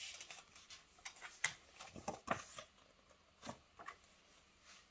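Faint paper rustling and a few light taps and clicks as a picture book's pages are handled and turned.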